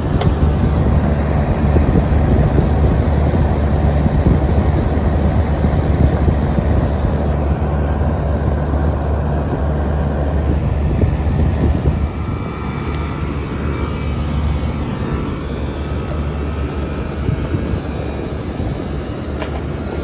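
Residential air-conditioning condenser running: compressor and condenser fan giving a steady low hum. The unit is running again after its failed run capacitor was replaced. The hum drops somewhat about twelve seconds in.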